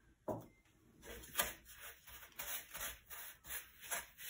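Wooden spoon scraping and pressing through butter and sugar in a plastic mixing bowl, creaming them by hand. It comes as a run of short, uneven strokes, about two or three a second, starting about a second in.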